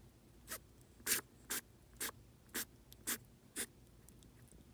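Richardson's ground squirrel sneezing in a rapid fit: seven short, sharp sneezes about two a second, stopping about three and a half seconds in.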